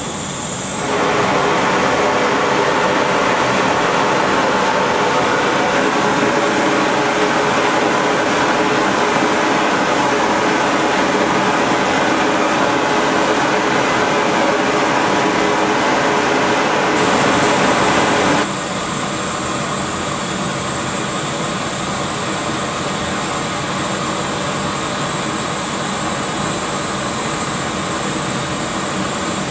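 Natural gas and air brazing torch burning on a brazing hearth with its air fan running: a loud, steady rushing hiss. It steps up sharply about a second in and drops to a lower steady level around eighteen seconds in.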